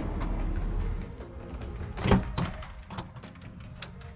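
Hood of a 2012 BMW X5 E70 being released and opened: a sharp click of the release at the start, a louder latch clunk about two seconds in with a second knock just after, then a few light clicks.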